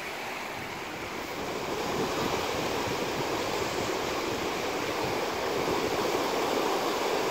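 Rushing of a swollen, muddy river in flood: a steady wash of fast-moving water that grows louder about two seconds in.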